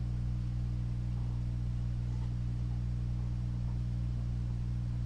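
A steady low hum made of several constant pitches, unchanging throughout, with a few faint light ticks over it.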